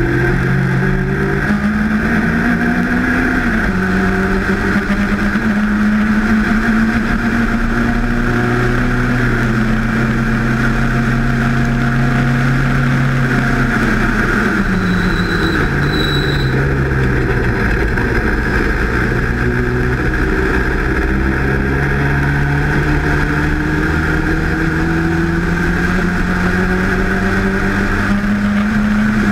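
Sports race car's engine at high revs, heard from the open cockpit: it pulls hard with an upshift a few seconds in, holds high revs down the straight, drops back around the middle as the car slows, then climbs again steadily over the last ten seconds. A steady rush of wind and road noise runs under it.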